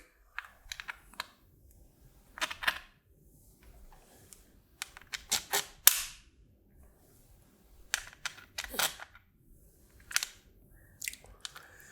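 Metal socket screws clicking and tapping against a black acrylic plate as they are pushed through its holes, a series of sharp clicks at irregular intervals.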